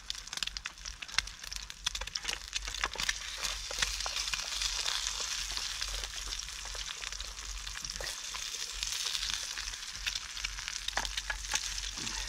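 An egg frying in oil in a pan, sizzling steadily with many small pops and crackles. The sizzle grows louder about four seconds in.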